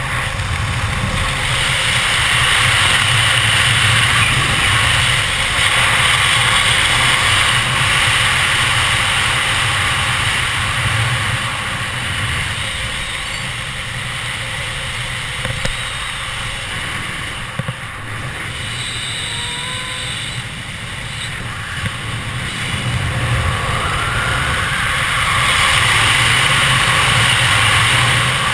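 Wind rushing over the camera's microphone during a parachute descent under an open canopy, a steady rush with a deep rumble that swells and eases in loudness.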